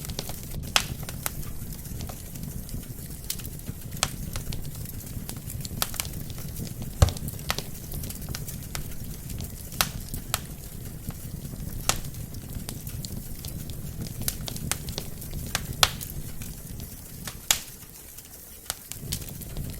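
Wood fire burning in a fireplace: a steady low rumble of flames under irregular sharp crackles and pops from the burning logs, the loudest pop about seven seconds in.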